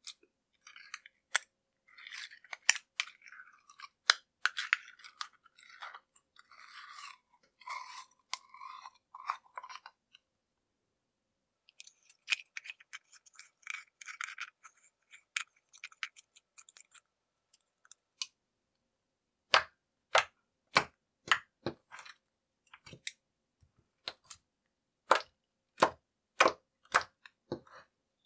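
Slime being squished and stretched by hand, giving sticky, crackly irregular clicking. About two-thirds of the way in it changes to a run of sharp separate pops, roughly two a second, as the slime is pressed and folded.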